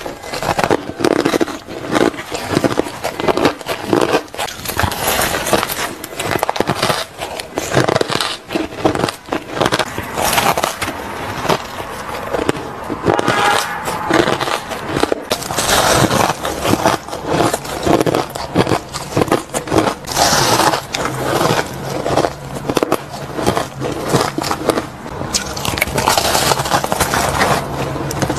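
Shaved ice being bitten and chewed, a dense irregular crunching and crackling as the frozen ice breaks between the teeth.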